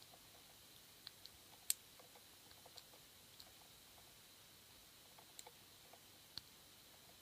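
Faint, scattered clicks of a lock pick and tension wrench working the pin stacks inside a six-pin Yale Y300/63 padlock, with a sharper click about a second and a half in and another near the end.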